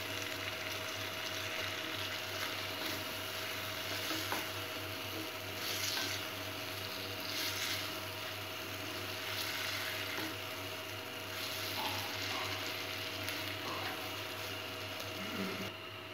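Egg masala gravy sizzling in a steel pot while a wooden spatula stirs it, with a few brief scraping swishes about six and seven and a half seconds in.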